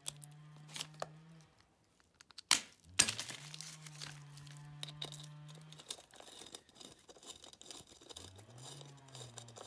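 Clear plastic sheeting crinkling and rustling as tools and bolts are handled on it, with two sharp knocks about two and a half and three seconds in. A low steady hum comes and goes three times underneath.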